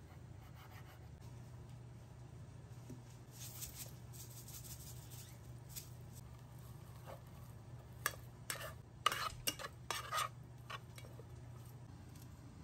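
Rice being mixed in a rice cooker's non-stick inner pot: a soft rustling, then a cluster of sharp scrapes and clinks of a utensil against the pot in the latter half. A low steady hum runs beneath.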